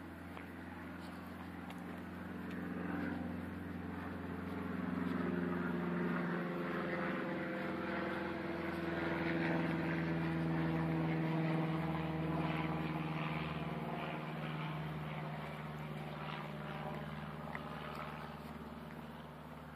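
A distant engine droning as it passes: it grows louder toward the middle and fades again, its pitch sinking slowly.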